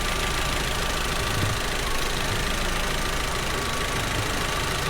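Audi TT 2.0 TFSI four-cylinder turbocharged petrol engine idling steadily while misfiring on cylinder 1, a fault traced to the cylinder 1 ignition and put down to a faulty spark plug. A faint steady high whine sits above the engine noise.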